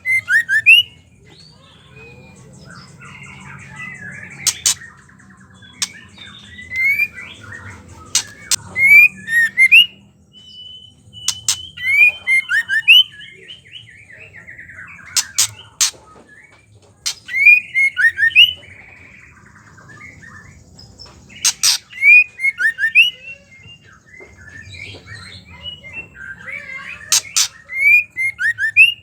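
Female white-rumped shama giving its harsh ketrekan chatter: sharp clicks mixed with quick down-slurred notes, in short bursts every few seconds.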